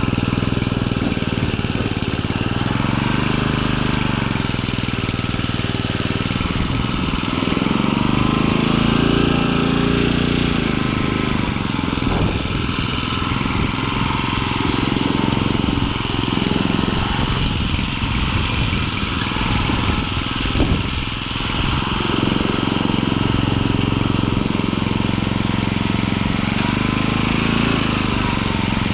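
Small gas-engine garden tiller running under load as its tines churn soil, the engine speed rising and falling several times. A brief sharp knock about two-thirds through.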